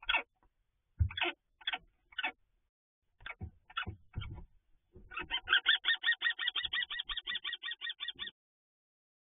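Short scuffling bursts and thumps inside a wooden nest box, then from about five seconds in a common kestrel's rapid kee-kee-kee call, about seven notes a second for some three seconds: the agitated call of a kestrel fighting a barn owl for the nest.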